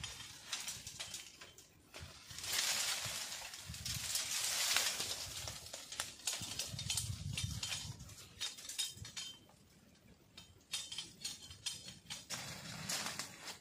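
Bamboo leaves and stalks rustling as they are pulled and shaken. The rustle swells a couple of seconds in, and scattered sharp clicks and snaps of stems follow near the end.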